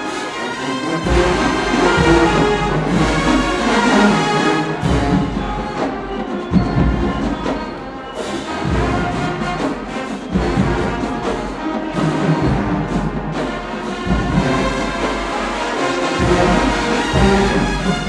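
Marching band playing, a full brass section over drums with heavy low-end hits.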